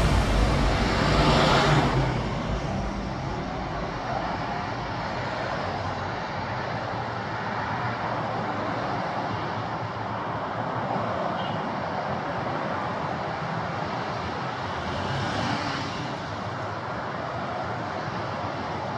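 Steady outdoor city ambience dominated by road traffic noise. A louder stretch in the first two seconds dies away, and the noise swells briefly about fifteen seconds in.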